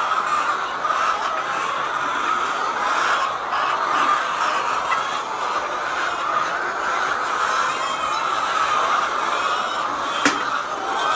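A large flock of laying hens clucking and chattering together in a steady, dense din, with one sharp click about ten seconds in.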